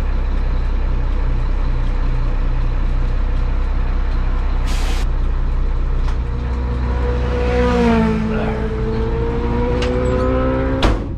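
A 1988 Mack CF fire truck driving, heard from inside the cab: a steady low rumble of engine and road, with a low pulse of about three beats a second early on. About halfway there is a short hiss of air, then a whine comes in that dips and slowly rises in pitch, and a sharp click comes near the end.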